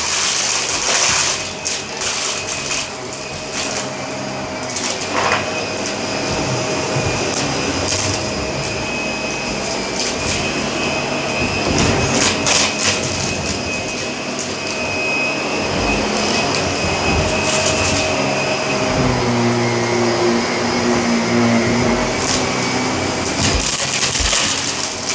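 Shark vacuum cleaner running fast over carpet, its motor giving a steady whine, with many sharp crackles and clicks as grit and debris are sucked up.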